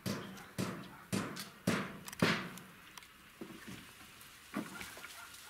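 Footsteps, about two steps a second, loudest over the first two seconds and softer after.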